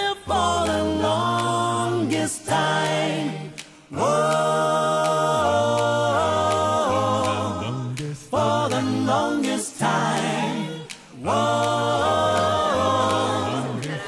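A cappella vocal music: several voices singing together in harmony, in held phrases with short breaks between them.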